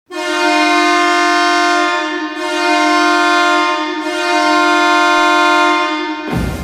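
Hockey goal horn sounding one long, steady, loud blast of a single pitch for about six seconds, wavering slightly in level twice. It cuts off just before the end as goal music starts.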